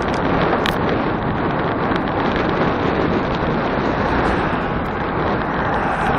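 Steady, loud wind rush buffeting an action camera's microphone on a bicycle speeding downhill at about 33 to 42 km/h, with a single faint click less than a second in.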